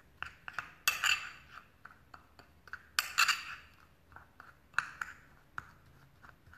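A metal spoon stirring dry powders in a ceramic bowl, clinking and scraping against the bowl at irregular moments, with a few louder clinks that ring briefly.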